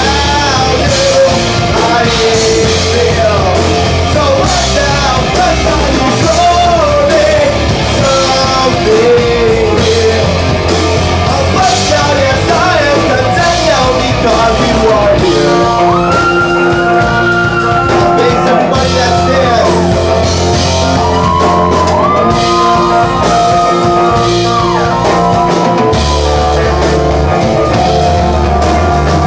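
Rock song with a sung lead vocal over a full band, including guitar; the singer holds long notes from about halfway through.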